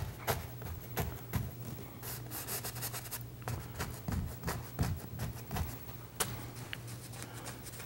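Paintbrush dabbing and scraping paint onto a canvas: irregular soft taps and brushing strokes throughout, over a steady low hum.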